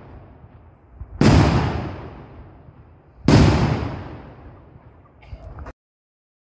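Black-powder Böller salute cannons firing: two loud shots about two seconds apart, each followed by a long rolling echo that dies away. A little after the second shot the sound stops abruptly.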